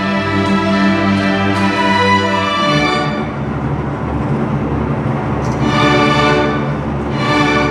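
String orchestra of violins, violas, cellos and double basses playing: held chords that give way about three seconds in to a lower, busier passage, which swells twice near the end.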